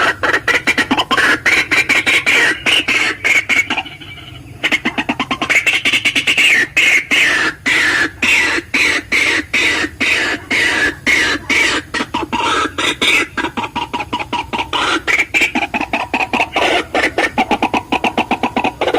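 White-breasted waterhen (ruak-ruak) calling: a loud, fast run of harsh repeated notes, several a second, with a brief pause about four seconds in.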